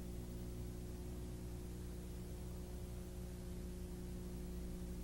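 Steady electrical hum with a light hiss, unchanging throughout, from the soundtrack of a degraded VHS tape transfer.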